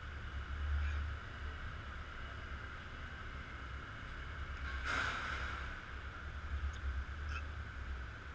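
Street background noise: an uneven low rumble with a steady hiss above it, and one short rush of noise about five seconds in.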